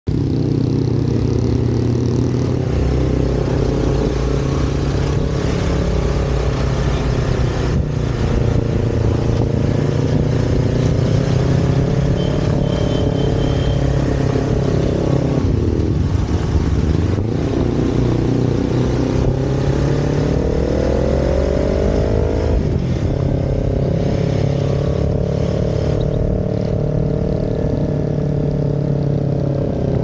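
Motorcycle engine running under way. Its pitch dips about halfway through, climbs steadily for several seconds, then drops sharply as a gear is shifted, and runs on steadily.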